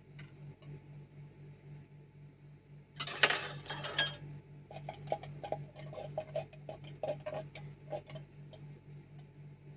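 Opened tin can of coconut milk emptied into a plastic mixing bowl: a brief loud clatter about three seconds in, then a quick run of light metallic clinks, about four a second, as the upturned can is tapped and shaken over the bowl to knock out the last of the milk.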